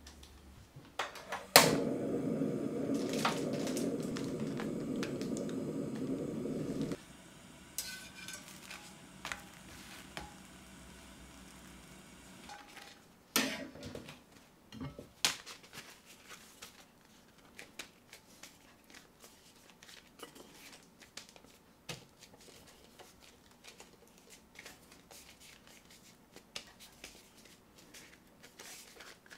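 Kitchen handling sounds. A sharp click, then a steady low rushing noise for about five seconds that cuts off abruptly. After it come scattered light knocks of utensils and soft rustling of tortillas being handled on a plate.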